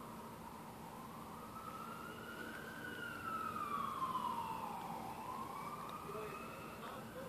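An emergency vehicle siren wailing, its pitch rising and falling slowly in long sweeps, loudest about four seconds in.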